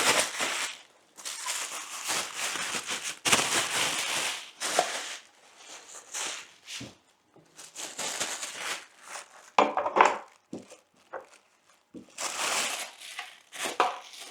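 Plastic packaging crinkling and rustling in irregular bursts as a speaker is pulled out of its wrapping, with a few light knocks near the end.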